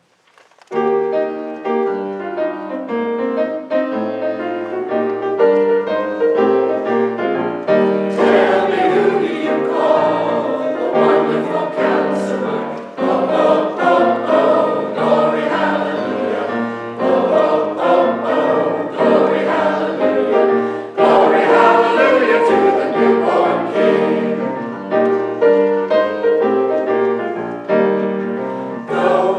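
Church choir singing a gospel song with instrumental accompaniment. The music starts just under a second in and grows fuller and brighter about eight seconds in.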